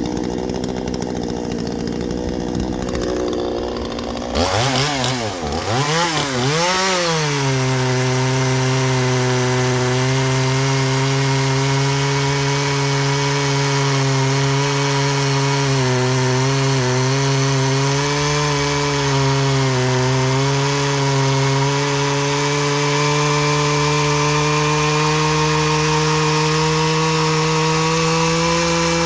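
Two-stroke chainsaw running at a lower speed for about four seconds, then revved up, its pitch swinging a few times. It then holds at full throttle through a long cut into hardwood, dipping briefly under load, and drops off at the very end.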